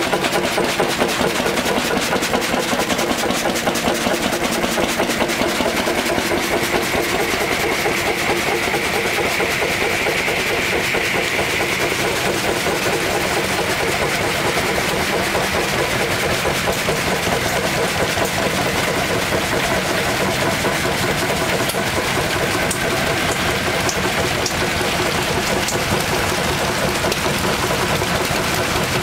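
Several vintage hot-bulb stationary engines running together, their firing beats and mechanical clatter blending into one steady, fast rhythm.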